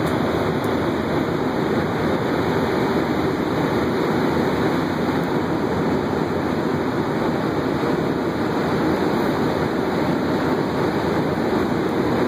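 Steady roar of blowing air from the heaters and fans of a bed bug heat treatment running.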